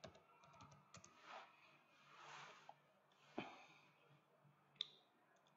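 Near silence: room tone with faint breathing close to the microphone and a few soft clicks, the clearest about three and a half and five seconds in.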